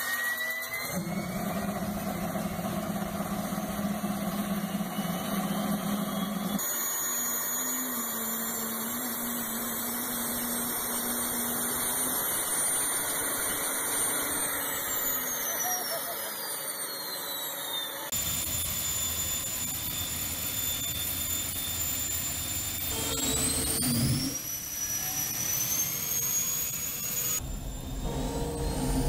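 Jet turbine engine fitted in a Porsche 928, whining as it spools up, then running with a high steady whine. The whine falls away partway through and climbs again later as the turbine speeds up.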